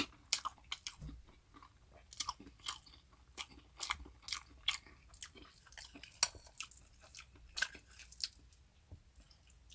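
Close-up chewing of spicy cold noodles mixed with raw cucumber, carrot and bell pepper: irregular crisp crunches and wet mouth clicks, two or three a second.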